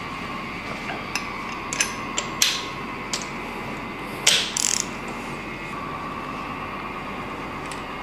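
Socket ratchet clicking and metal tools clinking while cylinder-head nuts are run down and tightened. There are a few separate sharp clicks in the first few seconds, a louder cluster about four seconds in, and a single click near the end.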